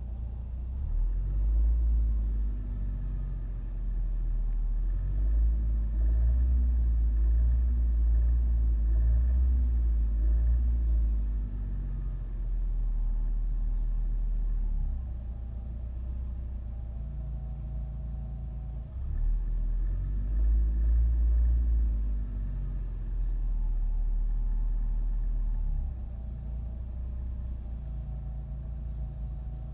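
A 2014 Nissan Rogue's four-cylinder engine running with a knock, held at raised revs for long stretches and dropping back down twice, near the middle and near the end. The owner traced the knock to a failing connecting rod bearing.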